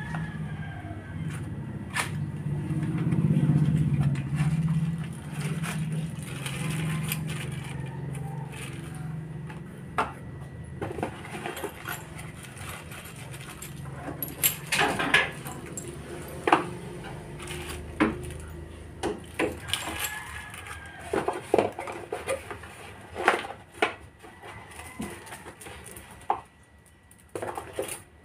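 Handling noise from unpacking riflescope accessories: a small plastic bag crinkling and rustling, and a string of sharp clicks and knocks as the metal scope rings and box parts are handled and set down on the floor. A low drone is loudest a few seconds in and fades out by about eight seconds.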